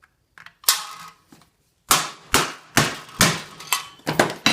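Sharp metal-on-metal impacts: a punch being struck against an HTS-735-11 brazed patch on a thin aluminum can to test whether it pushes back through. One knock under a second in, then a run of about eight blows, roughly two a second, from about two seconds in.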